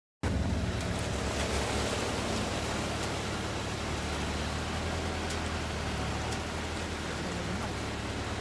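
Off-road pickup's engine running low and steady, under a constant even hiss, with a few faint ticks.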